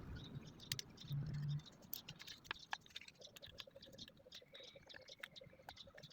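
Faint, scattered clicks and scrapes of small metal parts being handled as piston rings are fitted onto a 5 hp diesel engine's piston.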